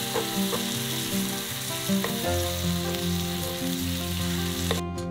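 Thin-sliced beef brisket sizzling as it is stir-fried in a frying pan, stirred with wooden chopsticks that tap the pan a few times. Soft background music plays underneath, and the sizzle cuts off near the end.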